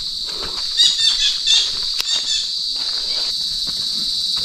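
Steady, high-pitched insect chorus in the forest, with footsteps on a dirt trail and a brief run of short chirps about a second in.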